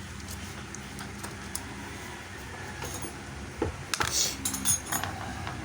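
Light metallic clinks and rattles of small hand tools and plug parts being handled, a few quick ones from about three and a half seconds in, over a steady low hum.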